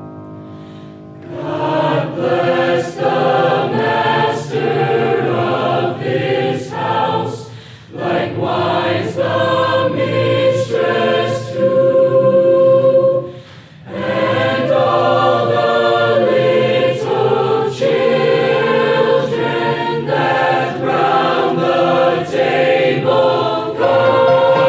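A choir singing; the voices come in about a second in and break off briefly twice between phrases.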